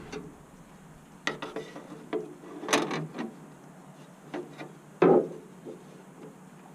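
Handling noises of a rubber cowl gasket and its thin metal retaining strip being test-fitted on a car body: scattered clicks, rubbing and light knocks, the loudest a knock about five seconds in.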